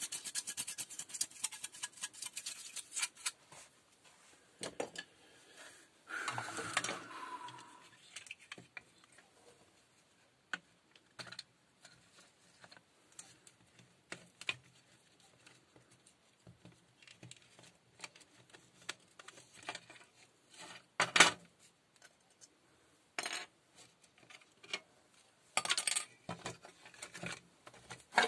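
Hard plastic drill housing halves and internal parts handled and set down on a workbench: a run of small clicks and rattles, then scattered knocks. There is a short scraping rustle about six seconds in and a sharper knock around twenty-one seconds.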